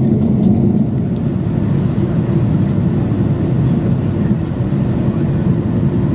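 Steady cabin roar of an Airbus A330-300 in flight, its GE CF6 engines and the airflow heard from a window seat as the aircraft descends toward landing. A few faint clicks come in the first second.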